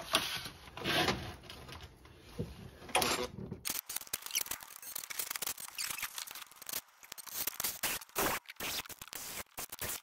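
A drill bit scraping and clicking as it cuts through a stripped bolt hole in an aluminum engine block, boring the hole oversize for a thread-repair insert. The noise is dense for the first few seconds, then turns into a run of irregular sharp clicks and scrapes.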